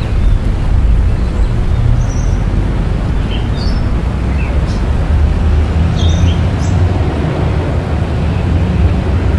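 City street ambience: a steady low rumble of traffic, with a few short, high bird chirps scattered through.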